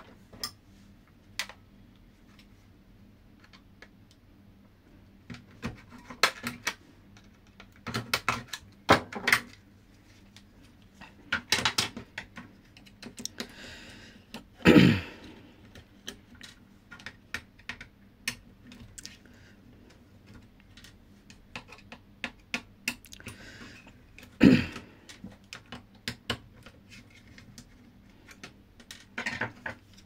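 Plastic clicks, snaps and rattles of an AC remote control's case being taken apart by hand, its shell prised open and the circuit board worked loose. Two louder knocks stand out, about halfway through and again about ten seconds later.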